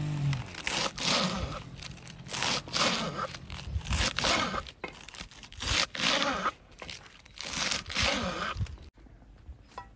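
Kitchen knife chopping through crisp romaine lettuce onto a wooden cutting board: a series of cuts, often two or three close together with short pauses between. The chopping stops about a second before the end.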